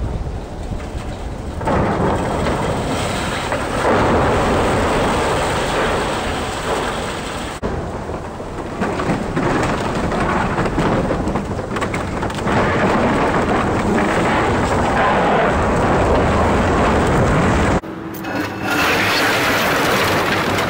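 Komatsu excavator demolishing a building: a continuous rumbling crash of breaking timber and masonry falling onto debris, mixed with the hiss of a water hose spraying the wreckage. Near the end the crashing gives way to a diesel engine running steadily.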